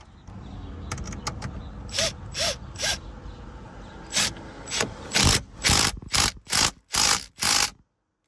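Ratchet wrench with a 14 mm socket tightening the steering wheel's centre nut onto the steering column, in about a dozen short ratcheting strokes that come closer together, about two a second, in the second half.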